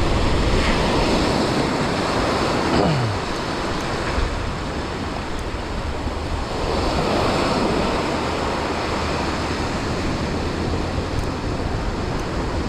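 Ocean surf breaking and washing up the beach, swelling and easing, with wind rumbling on the microphone.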